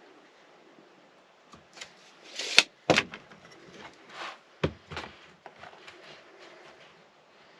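Hands working a sheet of sound deadener while measuring and marking a cut: short scraping and rustling strokes among several sharp clicks and knocks, the loudest a pair of clicks about two and a half to three seconds in.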